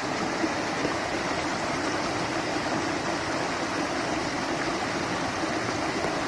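Mountain creek rushing over rocks and small rapids: a steady, even rush of water.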